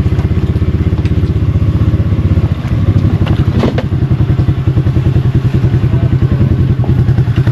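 Off-road vehicle engine running at low revs with a steady, rapid throb; it gets louder a little over two seconds in. A brief clank sounds about halfway through.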